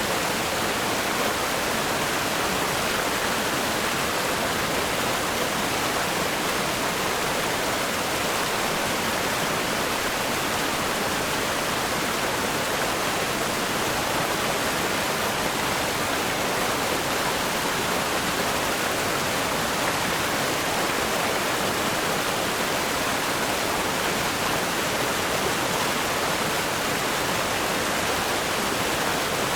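River rapids rushing over rocks, a steady, unbroken hiss of fast water with no change in level.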